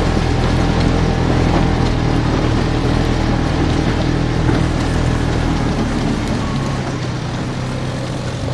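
Polaris RZR side-by-side's engine running at a steady speed under a rushing noise, easing off slightly about six seconds in.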